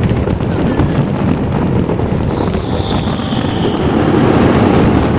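Fireworks display: a loud, continuous rumble of overlapping shell bursts with crackling, and a high whistle that falls slightly in pitch about halfway through.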